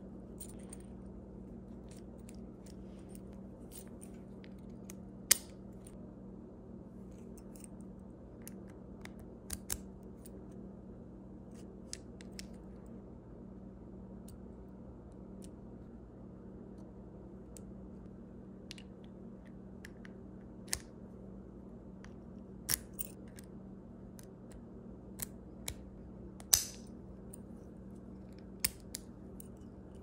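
Sharp metallic clicks and snaps of a 1920s Best padlock worked with its key, the key turning and the brass core being drawn out and set back. The clicks come singly and scattered, the loudest about five seconds in and near the end, over a steady low hum.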